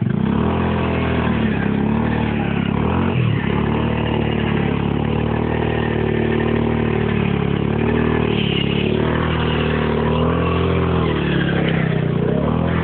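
Linhai ATV engine running hard under throttle, its pitch rising and falling as the rider works the throttle, with brief dips about three seconds in and again near the end.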